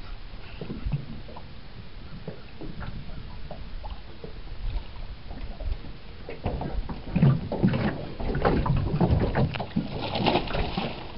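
Water sloshing and splashing around a bass boat, with irregular knocks against the hull. The sounds grow busier and louder over the last four seconds or so, while a hooked bass is fought close to the boat.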